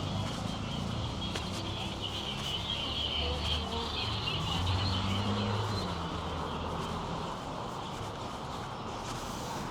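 Outdoor city ambience with birds chirping and faint voices over a steady low background hum. The chirping is clearest a couple of seconds in.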